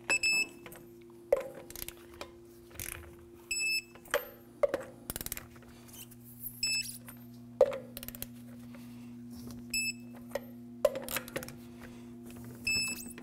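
Digital torque wrench beeping five times, about every three seconds, as each of the five lug nuts reaches the set 130 ft-lb. Loud metallic clunks come between the beeps as the socket is moved onto the next nut, over a steady low hum.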